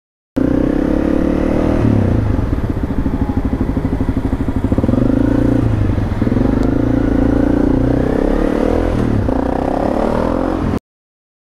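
Honda CRF250M supermoto's single-cylinder four-stroke engine running while filtering through slow traffic, its revs rising and falling with the throttle. There is a low pulsing stretch at low revs early on, and it picks up again near the end.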